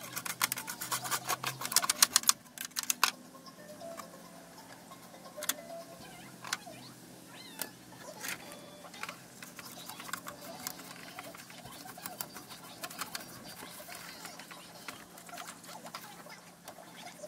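Inkjet printer mechanism running with rapid, even clicking for about two seconds, then stopping abruptly; scattered faint clicks and small squeaks follow.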